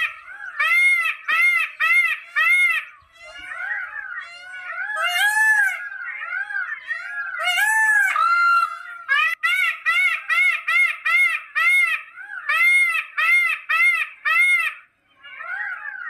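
Indian peafowl calling in a loud series of short notes, about three a second, each rising and falling in pitch. In the middle the calls turn irregular, with a few longer gliding notes, before the steady series resumes, and they break off briefly near the end.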